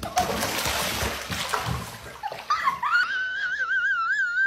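Water splashing and sloshing for about two seconds, then a long, high, wavering wail that starts about two and a half seconds in.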